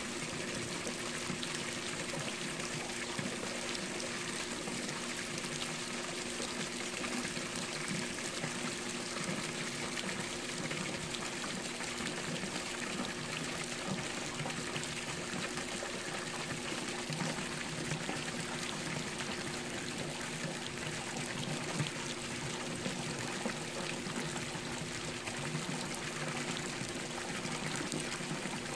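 Swimming-pool water splashing and trickling steadily, with a faint steady hum underneath.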